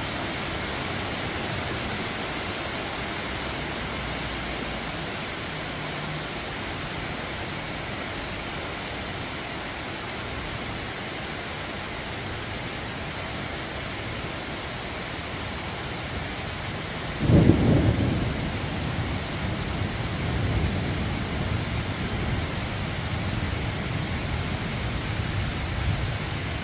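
Steady rain hiss, with a sudden thunderclap about two-thirds of the way through that rolls on as a low rumble.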